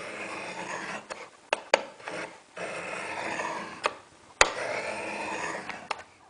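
Knife blade drawn along the coarse ceramic rods of a Spyderco Sharpmaker laid flat in its base: three long scraping strokes with a few sharp clicks of steel on ceramic between them, grinding a rounded-off tip back to a point.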